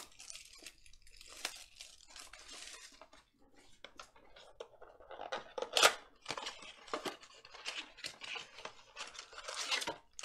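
Plastic shrink wrap crinkling as it is stripped off a cardboard trading-card blaster box, then the box being torn open, with a sharp tear about six seconds in, and the foil card packs rustling as they are slid out.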